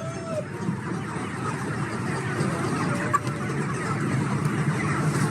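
The tail of a rooster's crow, ending about half a second in, then steady low rumbling background noise with faint chicken sounds.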